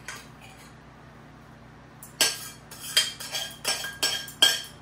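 A metal spoon knocking and scraping against a steel kitchen vessel. After about two quiet seconds comes a quick run of sharp, ringing clinks.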